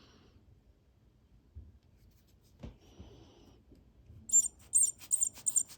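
A faint click, then, about four seconds in, a quick run of about eight short, high-pitched squeaky scrapes as small watch parts and tools are handled on the workbench.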